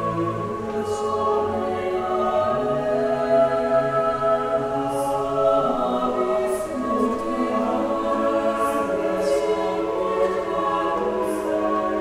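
Choral music: a choir singing slow, held chords that change every couple of seconds.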